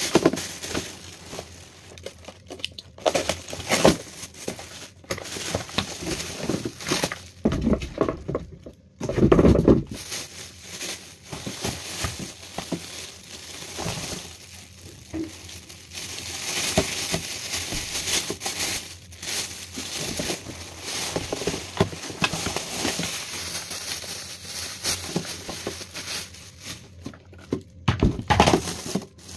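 Clear plastic packaging bags crinkling and rustling as electric fan parts are pulled out and unwrapped by hand, with a few dull thumps among the rustling.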